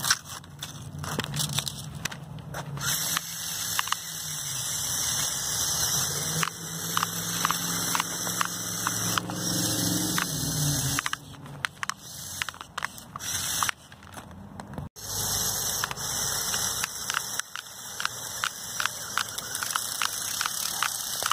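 Lego Technic RC snowmobile's two buggy motors whining through the drivetrain, their pitch shifting up and down as the tracks churn through snow, with many small crackling clicks. The motor sound drops away for a few seconds past the middle, then picks up again.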